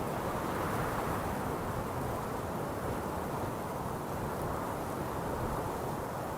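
Strong wind blowing steadily over a mountaintop, a rushing noise that swells and eases slowly.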